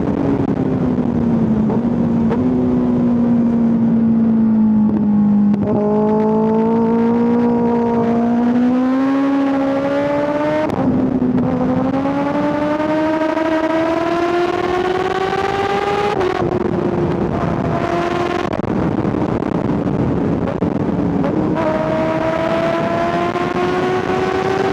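Kawasaki ZX-6R 636 inline-four engine under load, its pitch climbing steadily through each gear, with several gear changes where the note steps abruptly. Wind rush runs underneath.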